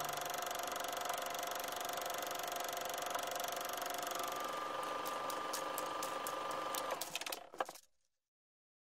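Film projector running: a steady whirr and hiss with a thin steady tone under it, a flurry of clicks near the end, then it cuts off suddenly about eight seconds in.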